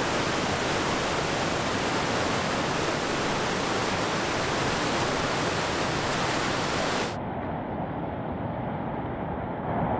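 Steady rushing roar of a big whitewater rapid. About seven seconds in it turns abruptly duller, losing its hiss.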